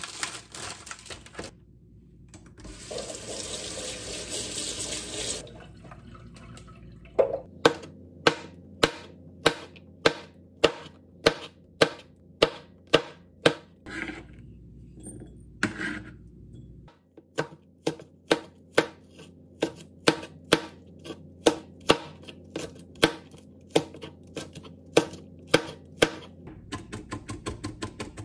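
A plastic produce pack crinkling, then a kitchen tap running for about two seconds. After that a chef's knife chops vegetables (red chili peppers, then onion) on a plastic cutting board in steady strokes about two a second, breaking into rapid mincing near the end.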